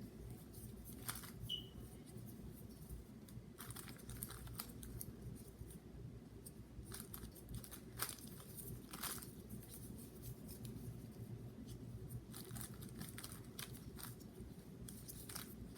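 GAN 3x3 speed cube being turned during a solve: clusters of quick, light plastic clicks as the layers snap round, with short pauses between turning sequences.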